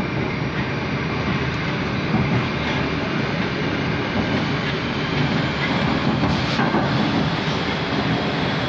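Inside a Moscow Metro 'Moskva' (81-765 series) train car pulling out of a station and gathering speed: steady running noise of the motors and wheels on the rails, growing slightly louder.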